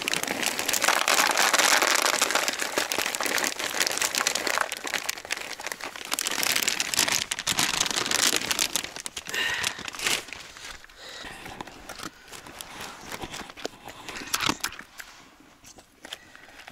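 A plastic bag of dry dog food crinkling as kibble is poured into a bowl, then a dog eating the kibble. The crackling is dense at first and thins and quietens after about ten seconds.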